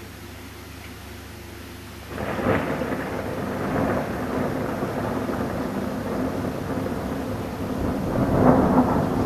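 Thunder: a rumbling peal breaks in suddenly about two seconds in and rolls on, swelling again near the end, over the steady hiss of rain.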